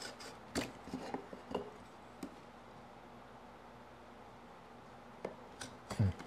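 Faint clicks and scrapes as a marking knife scores a line on a thin wooden lattice bar against a steel combination square, with a quiet stretch in the middle and a louder knock just before the end.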